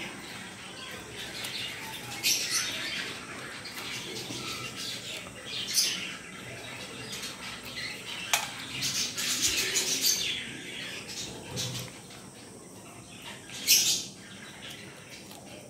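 Close-up eating sounds of biryani eaten by hand: wet chewing, lip-smacking and fingers working rice on the plates, heard as scattered short, sharp clicks and crackles. A dense run of them comes about nine seconds in, and the loudest single click comes near the end.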